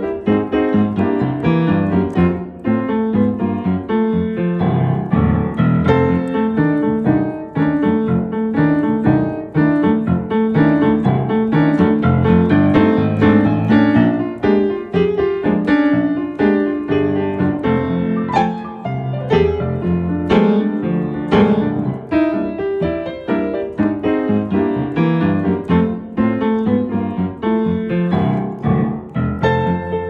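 Solo Mason & Hamlin piano played with both hands: a blues piece, with continuous notes and chords from bass to treble.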